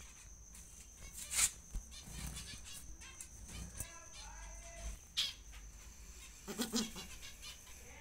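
A few brief rustles and knocks in a wire pigeon cage, the loudest about a second and a half in and a short cluster near the end, over a faint steady high whine.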